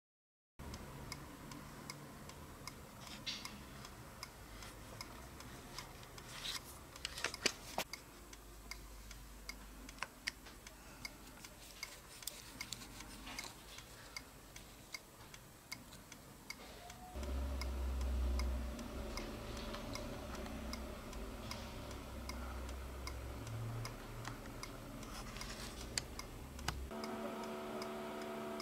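Small metallic clicks and taps of a hex key working at the rim of a scale model wheel loader's wheel, over faint regular ticking. A low rumble comes in about seventeen seconds in.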